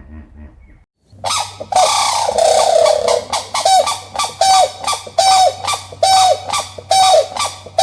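Donkey braying: a run of loud, repeated calls, roughly one and a half a second, each holding a tone and then dropping in pitch. It starts about a second in, after a brief silence.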